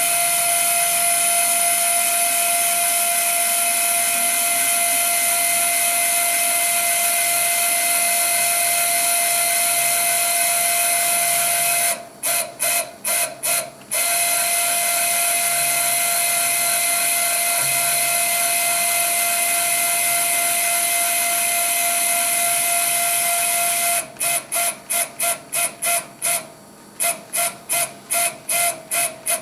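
X-axis stepper motor and its driver on a CNC-converted Grizzly G0752 lathe, jogging the cross-slide ball screw with a steady high-pitched whine. The steppers are not yet tuned. The whine breaks into rapid short start-stop pulses for a couple of seconds about twelve seconds in, and again, at about three a second, near the end.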